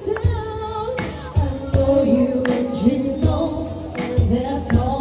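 Live band performing a song: women singing into microphones over the band, with a steady beat.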